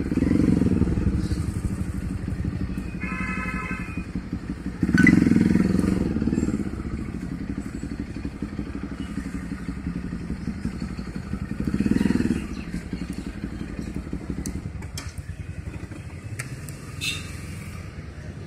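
A small engine running steadily, swelling louder a few times. A short high-pitched tone sounds about three seconds in.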